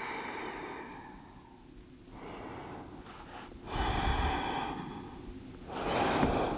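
A person breathing slowly and deeply while holding a yoga pose: long inhales and exhales follow one another, louder in the second half.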